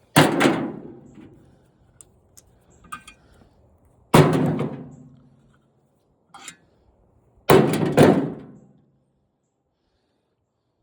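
Three loud thunks of tools or scrap parts being set down hard, the last a quick double knock, each dying away over about a second.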